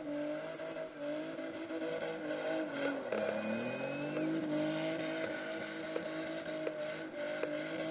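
A car engine held at high, steady revs. About three seconds in the revs drop briefly, then climb back.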